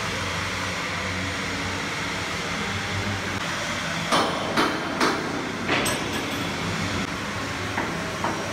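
Hammer blows on steel: four sharp metallic strikes about four to six seconds in, then two lighter knocks near the end, over a steady industrial machinery hum.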